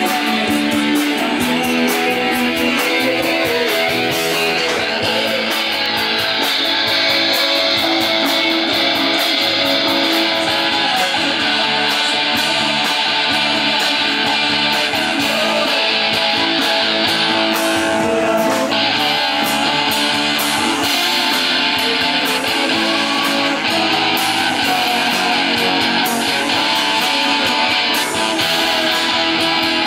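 Live rock band playing: strummed electric guitars over bass guitar, a drum kit and keyboard, with steady beats throughout.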